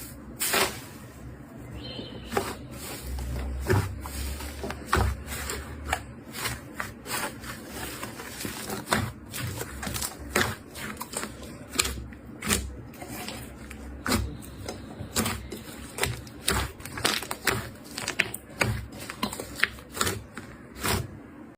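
Slime being pressed and kneaded by hand, giving irregular sharp crackles and pops, a couple of times a second.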